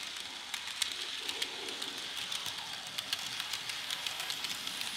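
Bachmann N-scale 0-6-0 steam locomotive and its coaches running smoothly on sectional track: a steady high hiss from the small motor and wheels, with many faint clicks as the wheels roll over the track.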